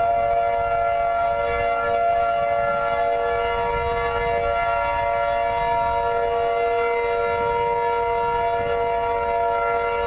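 Outdoor tornado warning siren sounding during a test, held at one steady pitch with several tones stacked together, swelling and fading slightly in strength.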